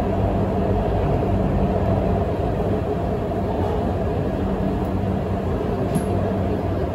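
Guangzhou Metro Line 7 train heard from inside the carriage: a steady rumble of wheels on rail with a low hum, slightly easing as the train comes into a station. One sharp click about six seconds in.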